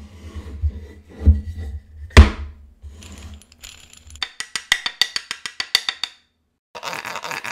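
Workshop tool and wood sound effects: several sharp knocks over a low hum, the loudest about two seconds in, then a quick run of light clicks. After a short gap a dense, rapid rattle starts near the end.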